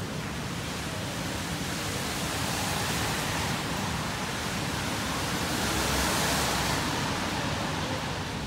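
Steady rushing street noise with no clear pitch, swelling gently twice.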